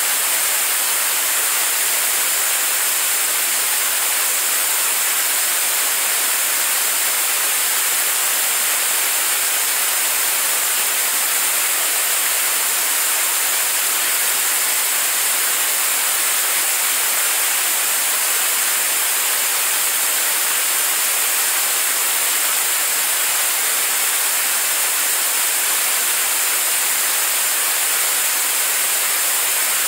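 Staged-combustion liquid rocket engine firing steadily on a test stand: a loud, even rushing hiss that holds without change, with no pitch or pulsing in it.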